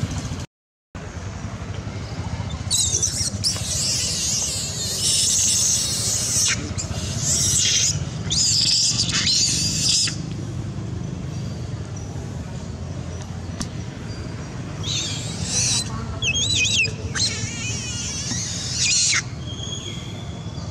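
Infant long-tailed macaque screaming: shrill, wavering cries in two long bouts, the second starting a little past the middle, over a steady low rumble.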